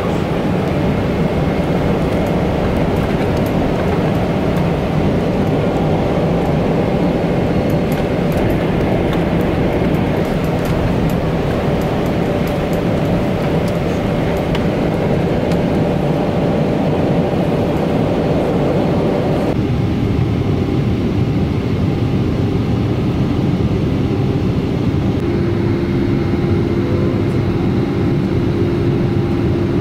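Airliner cabin noise inside a Boeing 777 with Pratt & Whitney engines: a steady, loud rush of engine and airflow noise with a faint steady hum. The sound changes abruptly about twenty seconds in, and a steady low tone joins a few seconds later.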